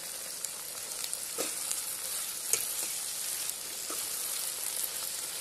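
Chopped tomatoes, onions, green chillies and fresh mint and coriander leaves sizzling in hot oil in a kadai as they are sautéed, with a slotted steel spoon stirring them and clicking against the pan a few times.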